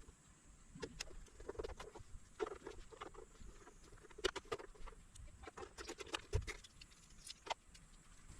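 Irregular small clicks, taps and rattles of hard plastic and metal parts being handled while a portable power station is put back together.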